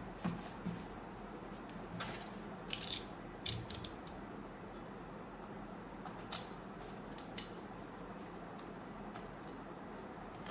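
Small cardboard box being handled and its seal sticker cut with a snap-off utility knife: irregular clicks, taps and scrapes, the loudest cluster about three seconds in, over a steady low hum.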